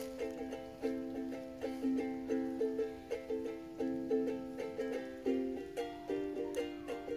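Background music: a plucked-string tune in a steady rhythm of short notes that ring and fade, with the harmony shifting about five seconds in.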